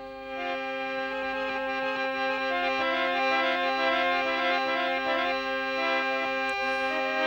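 Harmonium playing a melody of short stepping notes over one held drone note, swelling gradually in loudness.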